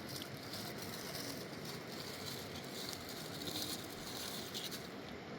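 Fast-flowing mountain river rushing: a steady wash of water noise with brief splashes flickering through it.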